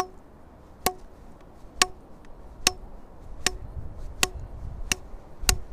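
A length of PVC pipe used as a fish bonker strikes a caught fish's head eight times, about once every 0.8 s. Each blow is a sharp knock with a short hollow ring from the pipe, as the fish is stunned and killed.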